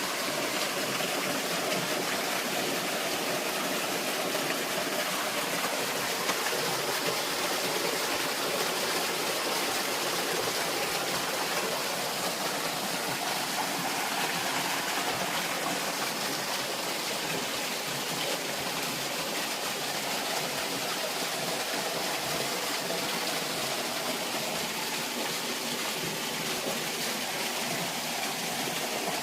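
Water rushing steadily over rocks in a stream, an even hiss with no breaks.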